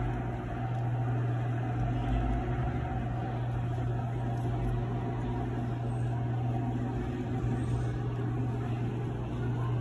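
Steady low machine hum with a faint even hiss over it, holding level throughout.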